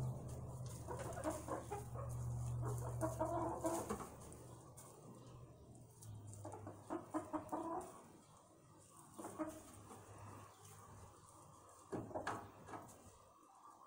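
Hens clucking softly in short calls, over a low steady hum that fades out about halfway, with a few sharp taps near the end.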